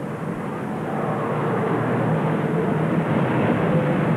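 Street traffic noise with a motor vehicle engine running, growing steadily louder.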